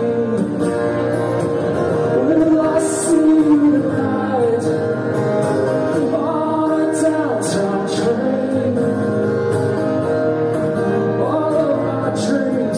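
A man singing with an acoustic guitar in a live solo performance.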